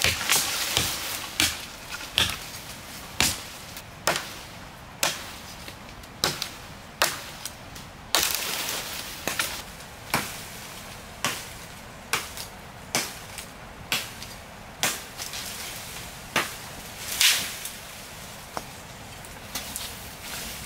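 Steady chopping with a blade into wood, about one sharp stroke a second, with a couple of longer swishing rustles between strokes.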